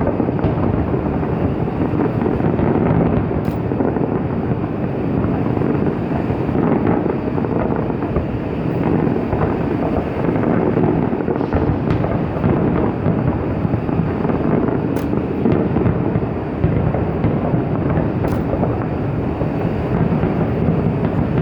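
Fireworks display going off continuously, its many bangs blending into a steady, dense rumble with no single bang standing out, mixed with wind on the microphone.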